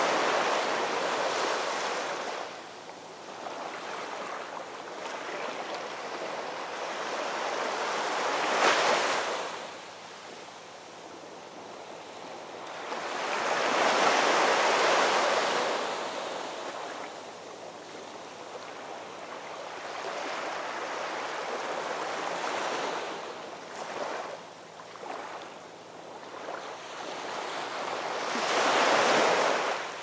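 Heavy surf breaking on rocks and concrete tetrapods, rising and falling in surges of crashing water. It is loudest at the start, about nine seconds in, for a long stretch around fourteen seconds, and again near the end.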